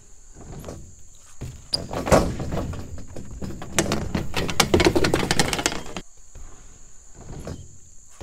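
BMX bike tyres rolling on a ramp, with a heavy thud about two seconds in. Then the riderless bike clatters and rattles in a rapid run of knocks as it tumbles down the ramp after a bail, stops suddenly, and the rolling sound resumes more quietly.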